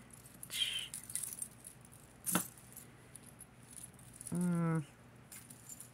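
Metal costume jewelry clinking and rattling softly as it is handled, with one sharp click about two seconds in. A short hummed "mm" from a woman a little after four seconds.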